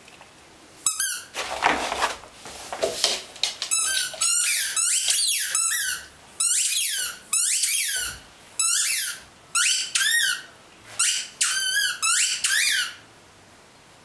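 Squeaky toy tennis ball squeaking in quick runs as a dog chews it: bursts of rapid high squeaks, each run about a second long with short pauses between, stopping about a second before the end. A spell of rustling noise comes early on, among the first squeaks.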